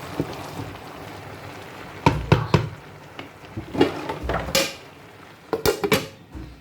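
A cooking utensil knocking and scraping against a pot, with sharp clinks about two seconds in and a cluster of them near the end, over a steady background hiss.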